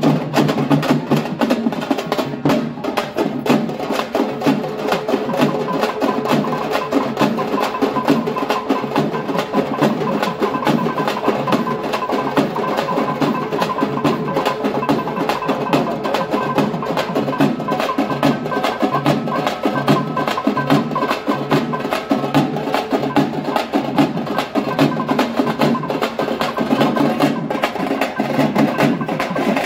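A troupe of large frame drums beaten with sticks, playing a fast, loud, driving rhythm over a steady held tone.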